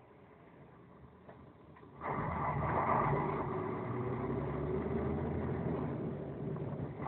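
Vehicle engine pulling away from a standstill: quiet at first, then about two seconds in the engine sound rises abruptly and holds steady as the vehicle moves off.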